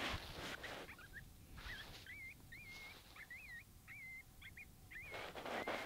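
Repeated short, high, warbling bird-like chirps, several a second. Two louder hissing rushes come at the start and again about five seconds in.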